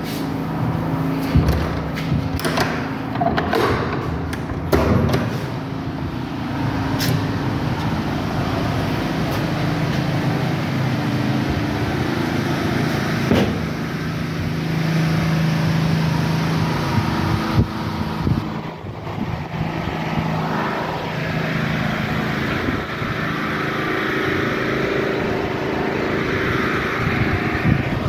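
Steady low mechanical hum of a motor running, over a noisy rumble, with scattered knocks in the first several seconds.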